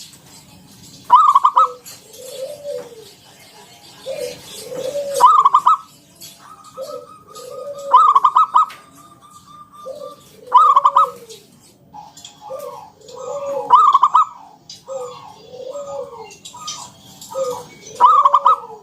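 Zebra dove (local perkutut) singing its cooing song over and over: each phrase has a loud rolling trill note followed by lower, bending coos, and the phrase comes back about every three seconds.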